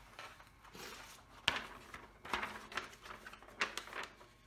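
A sheet of diamond painting cover paper rustling and crackling as it is handled and laid over the sticky canvas, in several short bursts, the sharpest about a second and a half in.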